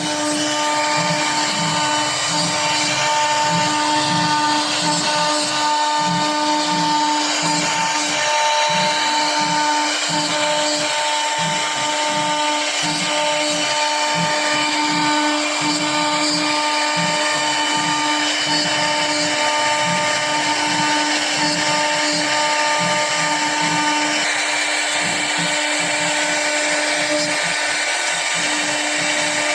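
A router spindle cutting a Corian solid-surface sheet: a loud, steady high-speed whine over a continuous hiss of the cut.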